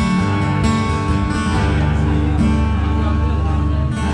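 Acoustic guitar strumming chords and letting them ring, the closing instrumental bars of a live song.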